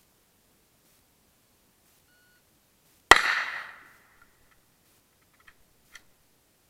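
A single rifle shot about three seconds in, its report ringing out and dying away in under a second, followed by two faint clicks.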